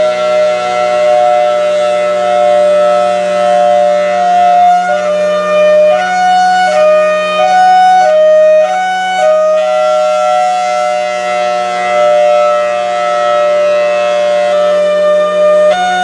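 Federal Signal Thunderbolt 1003 rotating outdoor warning siren sounding a hi-lo signal, alternating between two steady pitches, with the level swelling and fading as the horn turns.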